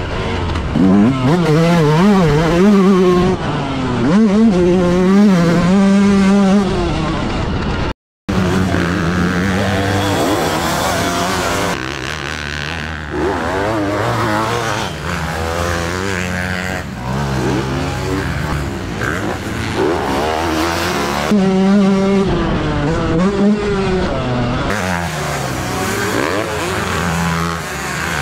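Yamaha YZ125 two-stroke dirt bike engine revving up and down hard under the rider, heard close from the bike. It cuts off briefly about eight seconds in, then several motocross bikes run on the track at once, their engines rising and falling over one another.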